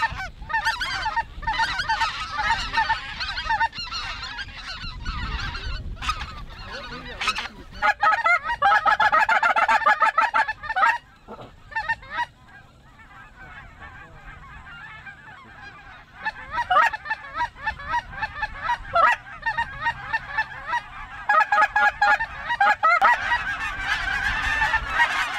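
Large flock of geese calling overhead, many overlapping honks and yelps at once. It is loud at first and again a few seconds later, fades to a faint chatter around the middle, then swells again toward the end as the birds come back over.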